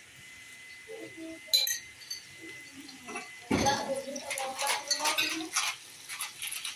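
A metal spoon knocking against a cooking pot and glass jar: one sharp clink about a second and a half in, then a burst of clattering and handling noise from about halfway through.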